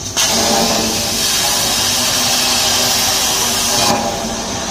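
Plasma torch of a CNC pipe cutting machine cutting a hole through a round steel pipe: a loud steady hiss that starts suddenly just after the start and cuts off sharply near the end.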